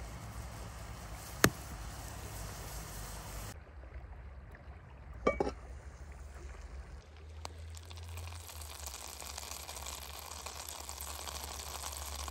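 Water simmering in a steaming pan, then a few knocks about five seconds in, and a block of butter starting to sizzle as it melts in a hot cast-iron skillet, the hiss building through the second half.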